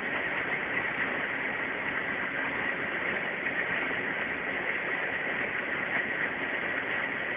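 Ikarus C42 microlight's engine and propeller in steady cruise, heard from inside the cockpit as an even drone mixed with rushing air.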